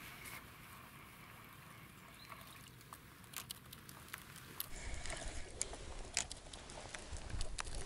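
Faint outdoor hiss, then from about two-thirds in, rod-and-reel handling noise while playing a hooked fish: irregular sharp clicks and knocks from the spinning reel and rod over a low rumble.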